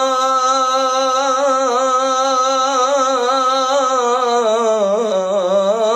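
A man singing an Islamic ibtihal unaccompanied, holding one long melismatic note with ornamental turns that dips in pitch near the end.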